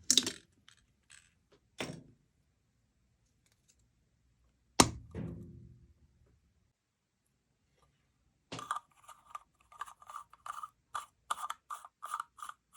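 Small parts and tools handled on a work surface. There are a few knocks, then a sharp clack about five seconds in that rings briefly, then a quick run of scraping strokes, about three a second, over the last four seconds.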